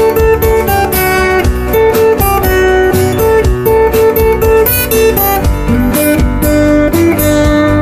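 Background music played on guitar.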